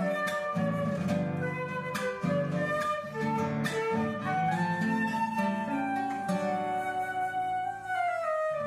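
Music: a flowing melody of held notes over plucked strings, the melody sliding down near the end.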